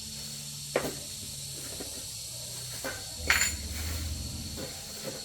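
A few short metallic clinks and knocks, like tools or parts being handled, the loudest about three seconds in, over a steady hiss and low hum.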